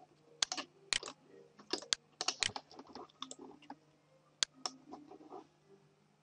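Computer keyboard keys and mouse buttons clicking in an irregular run of sharp taps, some in quick clusters. The clicks stop about five and a half seconds in.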